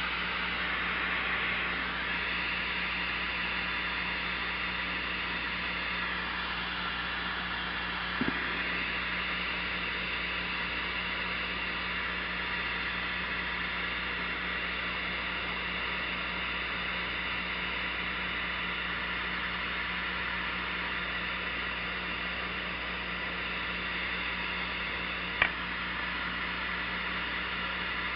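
Butane micro torch flame hissing steadily while heating solder, over a low steady hum. A small knock comes about 8 seconds in and a sharp click near the end.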